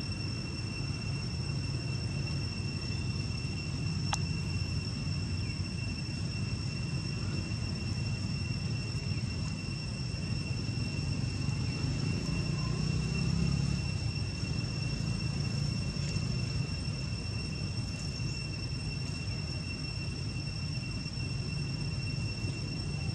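Steady outdoor ambience: a low rumble with a continuous high-pitched insect drone over it.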